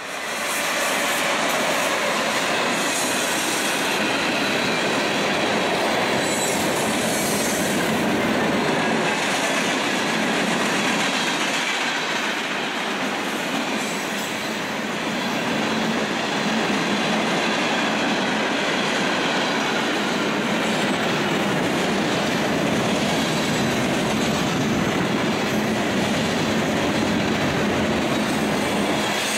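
Norfolk Southern freight train passing close on a curve: the locomotives go by within the first second, then a long string of covered hoppers and tank cars rolls past steadily, with a faint high squeal from the wheels on the curve.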